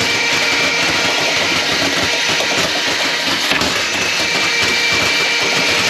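A small electric motor running steadily, with a continuous loud whirring noise and a faint high whine.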